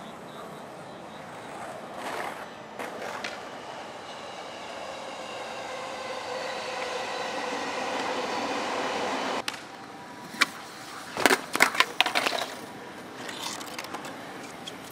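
Skateboard wheels rolling on concrete, a steady grinding roll that slowly grows louder and then cuts off. About ten seconds in comes a single sharp tail pop, then a quick cluster of loud clattering impacts as the board and skater come down from a kickflip off a stair set.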